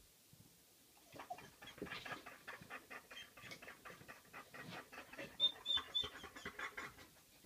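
A dog panting fast, about five or six breaths a second, starting about a second in, with a few short high squeaks a little past halfway.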